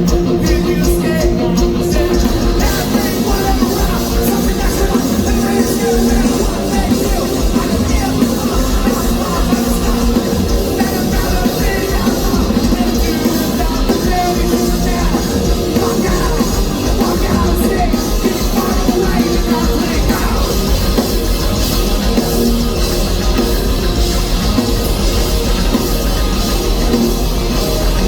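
Punk rock band playing live at full volume, with distorted electric guitars, bass, pounding drums and shouted vocals, heard loud and somewhat distorted through a phone microphone in the crowd.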